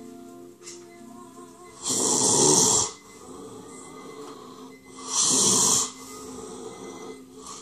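Two loud gasping breaths, each about a second long, about two and five seconds in, with steady faint tones underneath.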